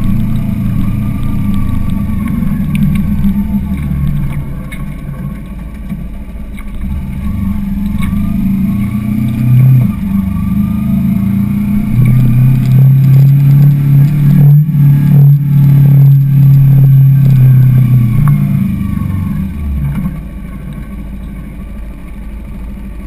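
Kawasaki sport motorcycle's engine running under way at low speed. The note rises and gets louder for several seconds in the middle as it pulls, then eases back to a lower, quieter note near the end as the bike slows.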